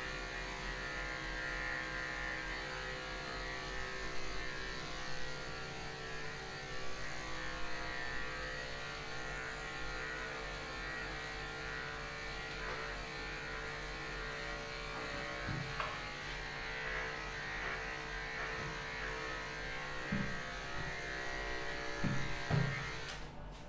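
Corded electric pet hair clipper buzzing steadily as it shaves a Pomeranian's coat, with a few soft knocks in the second half. The buzz stops just before the end.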